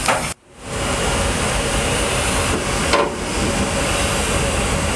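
Steady rushing noise of a warship's interior ventilation and machinery, cut off briefly about half a second in, with a single sharp click about three seconds in.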